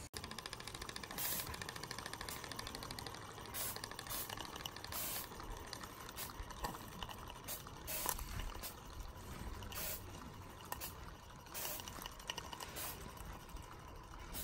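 Small Gauge One live-steam locomotive running, with a steady hiss of steam and short exhaust puffs roughly once a second, unevenly spaced.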